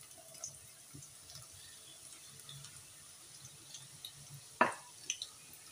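Sliced onions frying in hot oil in a nonstick kadai: a faint, steady sizzle with scattered small crackles. A sharp click about four and a half seconds in, with a smaller one just after.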